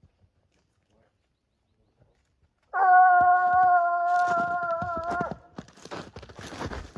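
A Gascon-type scent hound gives one long, steady bay of about two and a half seconds, starting partway through and dropping in pitch as it ends. This is the hound giving tongue while working a wild boar's scent trail. Footsteps then crunch through snow and dry leaves.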